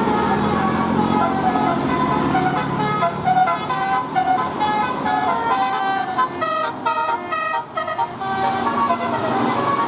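Bus 'telolet' horn: a multi-tone horn on a bus playing a quick tune of short notes that step up and down in pitch. About two-thirds through it breaks into a run of short separate blasts.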